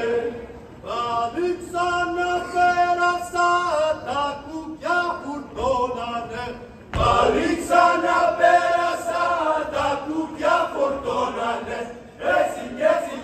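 A group of voices singing a Greek folk song in chant-like phrases with long held notes. There is a heavy thump about seven seconds in.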